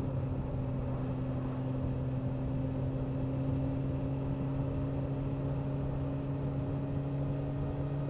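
Motorcycle engine running at a steady cruising speed: a constant low drone that holds one pitch, with road and wind noise underneath, recorded by a wireless clip-on mic.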